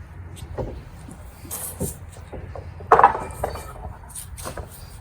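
Lumber braces being handled, several short knocks and clatters of wood, with one louder clattering knock that rings briefly about three seconds in.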